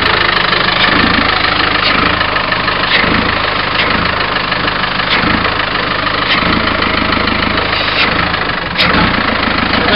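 Rover P4's Tdi turbodiesel engine idling steadily, with one sharp click near the end.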